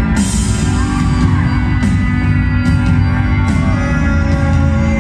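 Live band music played loud in a concert arena.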